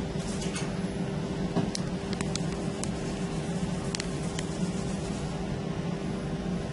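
M-Triangel OCA laminating machine running partway through its timed cycle, a steady mechanical hum with one constant tone, from its pump and fans. A few faint light clicks occur in the middle.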